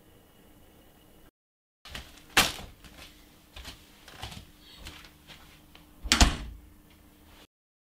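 Quiet room tone, then two sharp knocks about four seconds apart with a few fainter clicks and rustles between them, like a lid or cupboard door.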